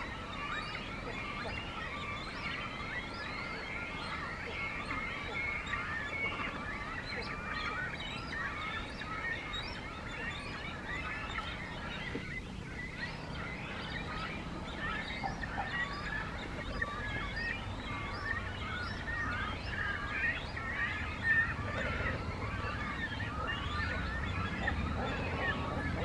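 Great cormorant nesting colony: a dense, continuous chatter of many short, high calls overlapping one another. A low rumble grows in the last several seconds.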